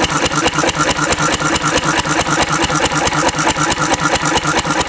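Antique Cushman Cub single-cylinder four-stroke stationary engine running steadily on Zippo lighter fluid, with an even, rapid beat of exhaust pulses.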